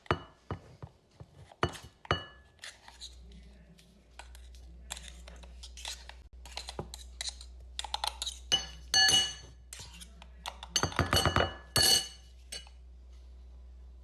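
Sharp clinks and knocks of metal and glass kitchenware being handled around an espresso machine, some strikes ringing briefly, with a faint low hum setting in about three seconds in.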